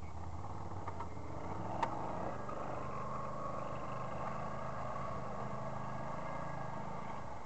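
ATV engine running steadily as the quad ploughs through shallow water and climbs out onto a muddy bank, with water splashing and rushing around the wheels. There is a single sharp click about two seconds in.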